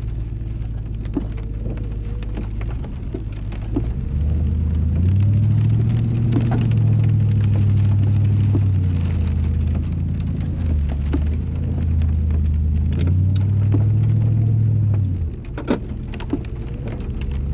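Ford Ranger's engine revving up about five seconds in and held high for about ten seconds as the truck churns through a mud hole in two-wheel drive, then dropping back. Water spatters on the body, with scattered knocks.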